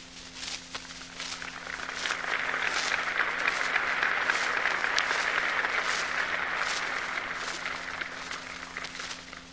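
Large open-air crowd applauding: the clapping swells over the first couple of seconds and dies away near the end. A low steady hum runs underneath.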